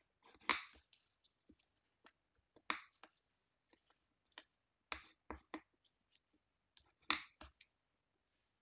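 Red cardstock being creased with a bone folder and folded by hand: a scattered series of short paper rustles and taps, the loudest about half a second in and again about seven seconds in.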